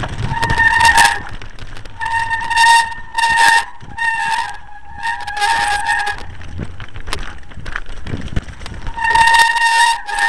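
Wet mountain bike brakes squealing in about six short bursts of a steady high tone as they are applied and released, over the rattle and rumble of the bike running down a rocky track.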